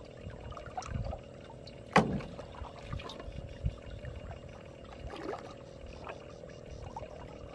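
Water sloshing and trickling around a person wading waist-deep in muddy water while handling a plastic bottle and a metal pot, with one sharp knock about two seconds in and a few softer ones after.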